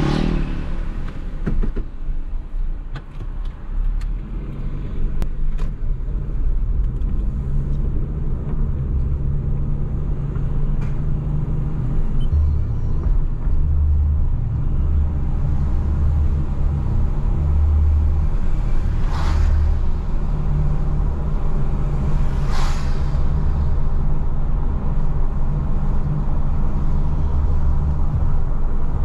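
Car driving on a wet road, heard from inside the cabin: a steady low engine and tyre rumble. Two brief swishes about two-thirds of the way through.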